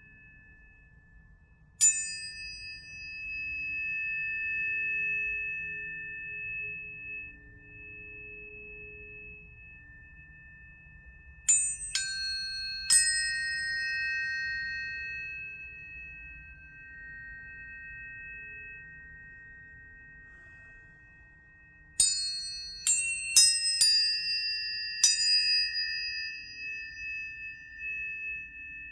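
Planetary tuning forks struck one after another. Each strike is a sharp metallic tap followed by a long, slowly fading ring, and two or three forks ring together in overlapping tones. There is one strike about two seconds in, three close together near the middle, and a quick run of five strikes near the end.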